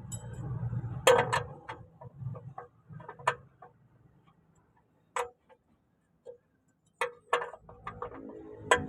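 Scattered sharp clicks and clinks at an uneven pace, with a low hum under them for the first few seconds and a quiet stretch in the middle.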